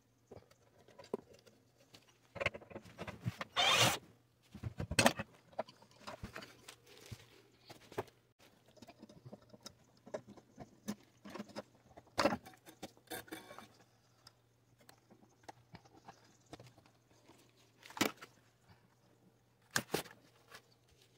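Hands working around a mini fridge's compressor and wiring: scattered clicks, knocks and scrapes with rustling between them, over a faint steady hum.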